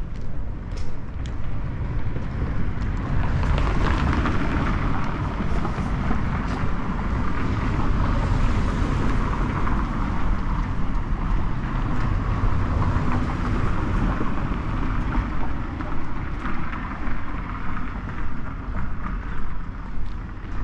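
Road traffic on a city avenue: a vehicle passes, its noise swelling and then fading over several seconds, over a constant low rumble of traffic.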